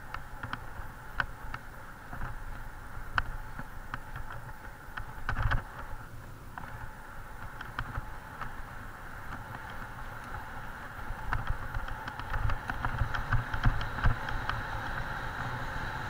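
Mountain bike ridden fast over a bumpy forest dirt trail: tyres rolling over earth and leaves with a steady rumble, and the bike and camera mount rattling and knocking over bumps, hardest about five seconds in and again near the end.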